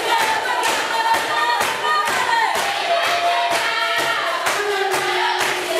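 A group of children singing in chorus over a steady percussive beat of about two strokes a second, with long held and gliding notes.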